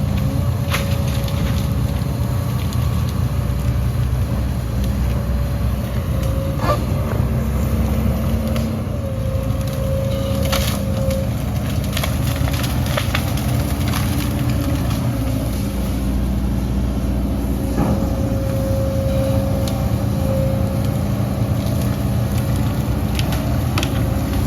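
Diesel engine of heavy earthmoving machinery running steadily under load, with scattered knocks and clanks of soil and metal.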